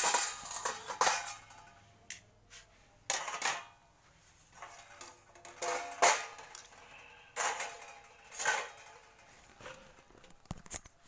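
Parts of a stainless-steel (inox 201) charcoal grill clinking and knocking together as the perforated charcoal bowl is set into the grill body and the wire grate is laid on top. It is a string of separate metallic clinks, some ringing briefly.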